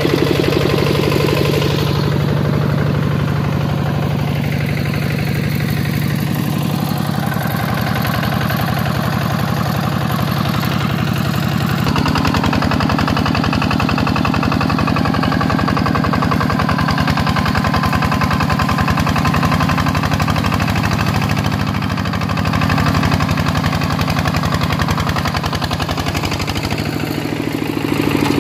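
Single-cylinder diesel engine of a two-wheel walking tractor running steadily while hauling a trailer loaded with timber through mud, its note shifting about twelve seconds in.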